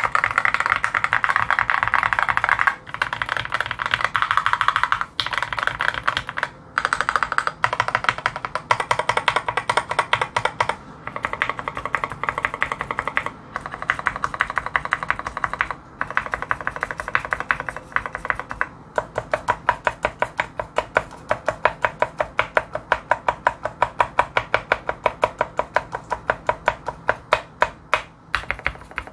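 Typing on a tenkeyless mechanical keyboard with lubed and filmed Gateron Ink Black linear switches. At first it is fast, continuous typing; from about nineteen seconds in it turns to separate, even keystrokes about three a second.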